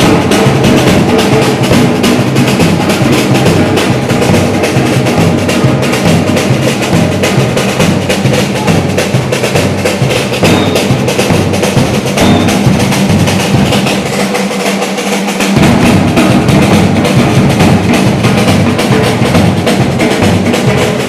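Batucada samba percussion ensemble playing a dense, loud groove of snare, bass drums and wood-block-like clicks. About two-thirds of the way through, the bass drums drop out for a second or so, then the full ensemble comes back in.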